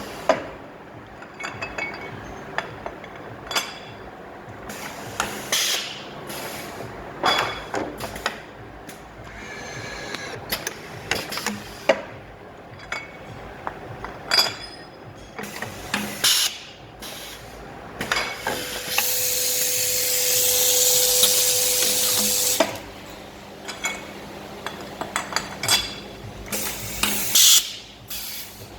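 Automatic grouping machine for service-regulator lower bodies running: irregular mechanical clacks and knocks of its moving parts. About two-thirds of the way through, a steady hiss with a faint tone under it lasts about four seconds, then stops suddenly.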